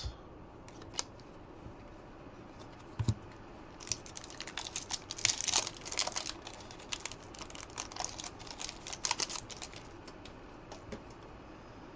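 A stack of trading cards being handled and flicked through by hand: a few single clicks, then from about four seconds in a quick run of papery clicks and rustles as the cards slide against each other, fading out near the end.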